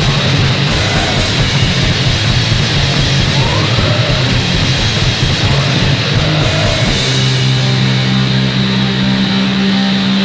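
Punk band demo recording: loud, distorted rock with electric guitar, bass and drums playing hard. About seven seconds in, a low note is held.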